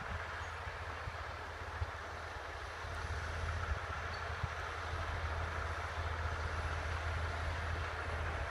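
Heavy diesel engines of a logging truck and a Caterpillar bulldozer pushing it, running steadily under load, growing a little louder about three seconds in.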